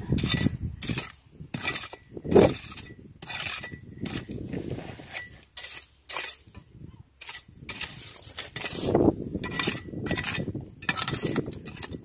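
A small metal hand rake scraping and raking through coarse gravel and shell grit in a rock crevice, digging for clams: repeated short scratchy strokes with stony clinks, roughly one or two a second.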